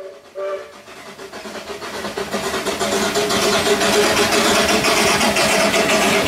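A miniature park-train locomotive gives a short chord-like whistle toot at the start. Its running noise then builds over two or three seconds as it approaches, and holds steady.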